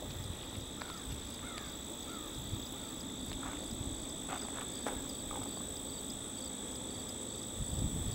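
Steady high-pitched insect chorus that runs without a break, over a low background rumble, with a few short chirps in the first half.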